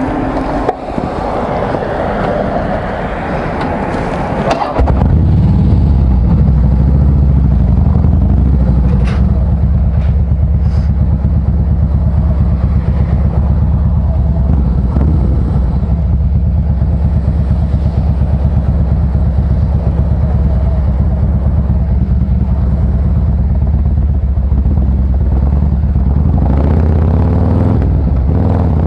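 Harley-Davidson Fat Boy Special V-twin through a SuperTrapp variable exhaust, heard from the saddle while riding. For the first few seconds wind and road noise dominate; about five seconds in the exhaust jumps suddenly much louder into a steady, low, rapid pulsing that holds on under throttle.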